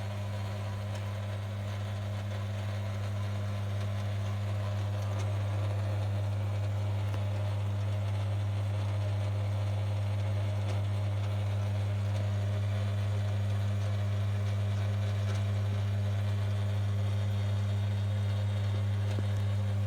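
Dishwasher running: a steady, unchanging low mains-frequency motor hum with a faint hiss above it.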